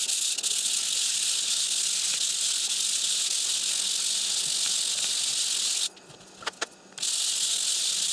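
A 3D-printed plastic part rubbed back and forth by hand on sandpaper over a granite surface plate, a steady scratchy hiss, lapping its face flat. The sanding stops for about a second around six seconds in, with two light clicks, then starts again.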